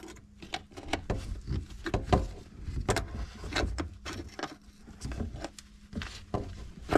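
Irregular clicks, knocks and rubbing of tap parts and tools being handled during work on a mixer tap, with one sharper knock about two seconds in.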